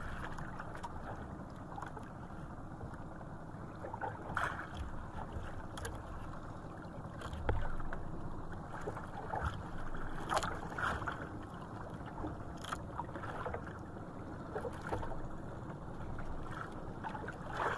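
Sea water lapping and sloshing against the hull of a small outrigger boat, with scattered short knocks and splashes as a handline is hauled in.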